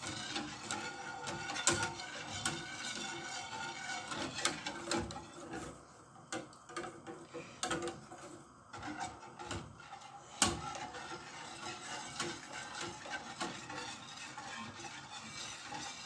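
A wire whisk beating a thin milk-and-cornstarch cream in an aluminium pot, its wires clicking and scraping against the metal sides in a quick, uneven rattle. There is one louder knock about ten seconds in.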